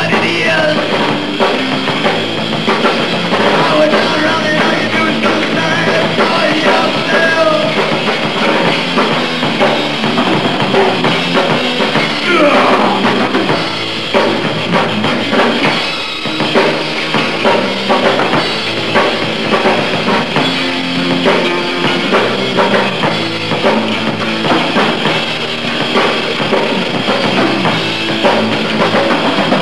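Live hardcore punk band playing a song: electric guitar through Marshall amps over a pounding drum kit, loud and steady throughout. About twelve seconds in, one note slides sharply down in pitch.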